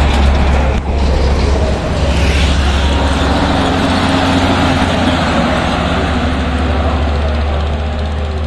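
Heavy diesel trucks passing close on the highway: a deep, steady engine rumble with tyre and road noise. After a brief dip about a second in, an Isuzu Giga tanker truck approaches and goes by.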